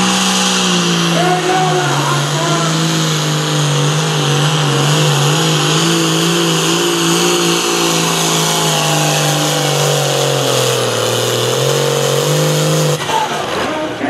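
Hot Farm class pulling tractor's diesel engine running flat out under load as it drags the weight sled, its pitch holding steady, then sagging slightly as the tractor bogs down, and cutting off suddenly about thirteen seconds in as the pull ends.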